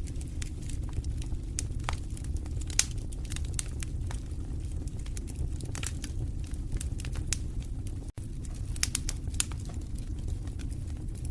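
Wood fire in a fireplace crackling, with irregular sharp pops and snaps over a low steady rumble of the flames. The sound cuts out for an instant about eight seconds in.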